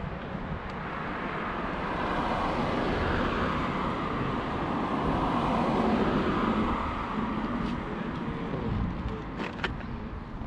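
Road traffic: a vehicle passing in the street, its noise swelling over a few seconds and then fading. A couple of sharp clicks come near the end.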